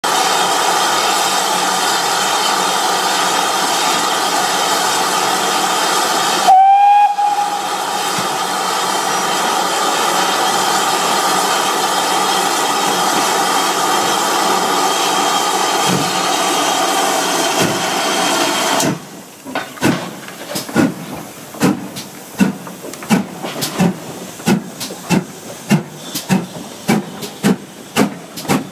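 GWR 4200-class 2-8-0 tank engine No. 4277 'Hercules' letting off a steady hiss of steam, with one short, loud whistle blast about seven seconds in. About two-thirds of the way through the hiss stops suddenly, and the engine starts away with exhaust beats that quicken as it gets moving.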